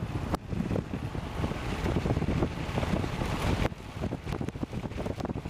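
Wind buffeting the microphone in a moving car, a fluttering rumble over road noise; it eases somewhat about three and a half seconds in.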